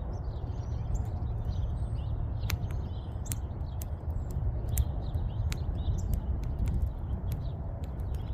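Wood fire crackling, with sharp pops every second or so over a low steady rumble, and birds chirping.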